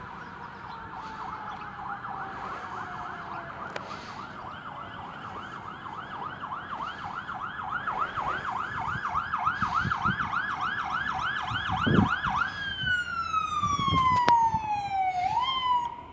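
Fire engine siren growing louder as the engine approaches. It starts as a slow falling wail, switches to a fast yelp of about three cycles a second, then goes back to a long falling wail near the end, with a brief low blast about twelve seconds in.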